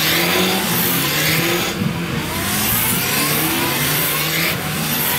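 Honda CB1300P police motorcycles' inline-four engines revving as they ride a tight course, one passing close by; the engine note rises and falls repeatedly with the throttle.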